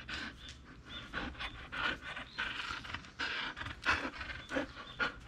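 Golden Retriever puppy panting hard with a rubber toy ball in its mouth: a tremendous breathing sound of quick, uneven breaths. It is panting in the summer heat, which its owner fears could bring on heatstroke.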